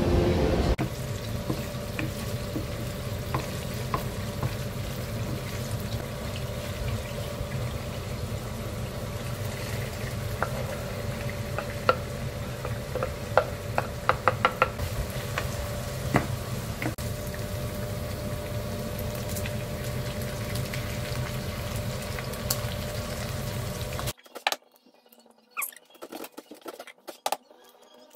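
Minced beef sizzling as it fries in a non-stick pan, stirred with a wooden spoon that scrapes and clicks against the pan, with a cluster of sharper clicks in the middle. Near the end the sizzle stops at a cut and a few light taps follow as an egg is cracked over a frying pan.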